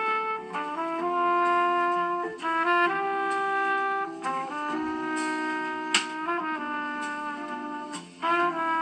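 A preloaded Samsung Galaxy A42 5G ringtone playing: a brass-like melody over held chords, the notes changing every half second or so, with a sharp percussive hit about six seconds in.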